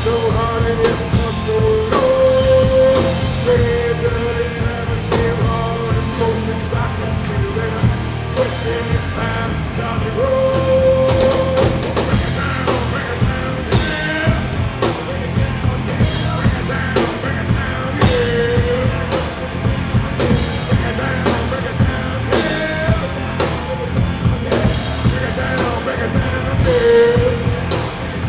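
Rock music with a drum kit keeping a steady beat and a voice singing long held notes.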